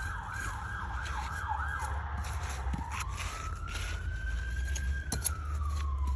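Emergency vehicle siren, first in a fast yelp of rapid up-and-down sweeps, switching about two seconds in to a slow wail that rises and then falls, over a steady low rumble.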